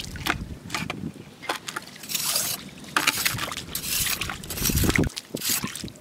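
Rubber boots splashing and squelching through shallow water and wet mud in uneven steps, with scattered small clicks and knocks.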